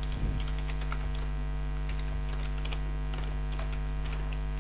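Computer keyboard being typed on: faint, irregular key clicks over a steady electrical mains hum.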